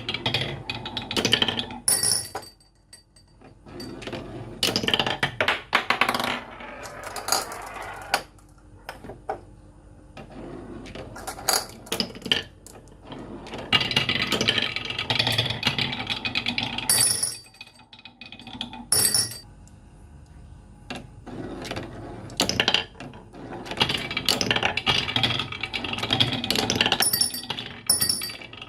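Marbles rolling and clattering down a marble run, with many sharp clicks and clacks as they hit track pieces and each other, broken by a few quieter gaps.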